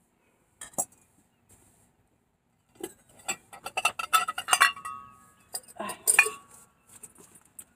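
Ceramic flower pots clinking and knocking against one another as they are rummaged through and picked up: one knock, then a clatter of clinks from about three seconds in, with two strikes ringing briefly with a clear tone.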